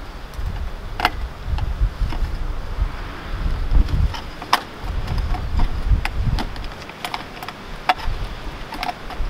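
Utility knife ripping a vinyl siding corner post lengthwise, the vinyl giving sharp clicks and cracks at irregular intervals. Wind rumbles on the microphone throughout.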